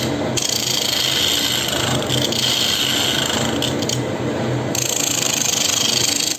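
Wood lathe spinning a large wooden bowl blank while a turning gouge cuts it: a steady hiss and rasp of shavings coming off the wood over the lathe's motor hum. The cutting hiss thins out for about a second near four seconds in, and the sound cuts off suddenly at the end.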